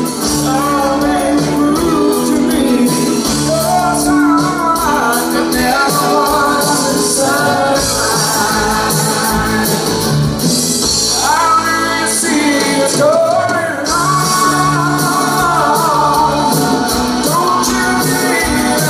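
Live pop-rock band playing: a male lead vocal sings over guitars, keyboard and drums, heard through the hall's reverberation. The bass end drops away for a few seconds around the middle, then returns.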